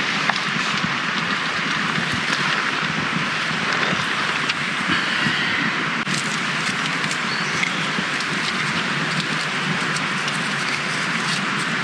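Steady hiss of rain on the tarp shelter, with a small wood fire crackling and snapping.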